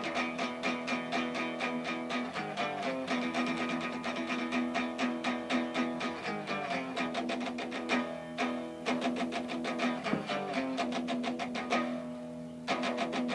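Music on a plucked string instrument like a guitar, played in fast, evenly repeated strokes on held chords. It thins out briefly near the end, then comes back.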